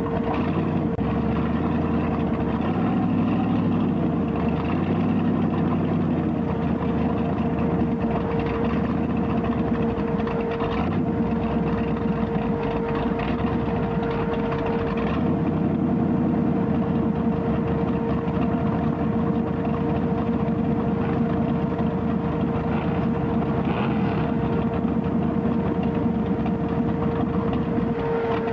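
Formula Offroad race car's engine running steadily, heard from on board the car.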